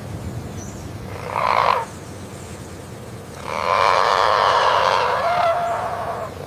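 Whooping crane calling: a short harsh call about a second in, then a longer, louder call lasting close to three seconds.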